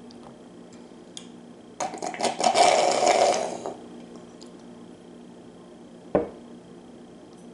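A loud slurp of the last of a rum-and-eggnog cocktail, lasting about two seconds, crackly and sputtering. A few seconds later, a single knock as the stemmed glass is set down on the table.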